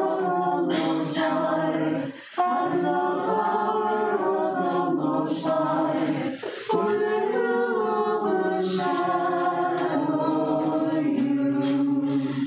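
Several voices singing Orthodox liturgical chant a cappella in sustained phrases, with brief pauses for breath about two and six and a half seconds in.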